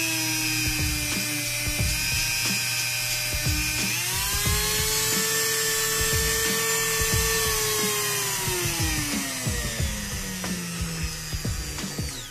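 Ingco mini grinder (rotary tool) driving a flexible-shaft handpiece, running with a high whine and scratchy contact clicks. Its pitch jumps up about four seconds in, then slides steadily down from a little past halfway as the motor slows, and the sound stops near the end.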